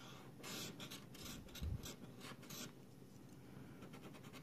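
A scratch-off lottery ticket being scratched: a quick run of short, faint scraping strokes that stops about two and a half seconds in.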